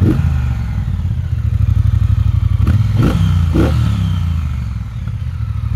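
2019 Triumph Bonneville Speedmaster's 1200 cc parallel-twin engine idling, with a quick throttle blip at the start and a few more in close succession about three seconds in before it settles back to idle.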